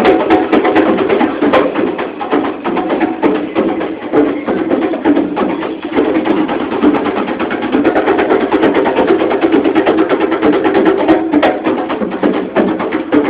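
Several hand drums played together by street drummers in a dense, steady rhythm of quick strokes.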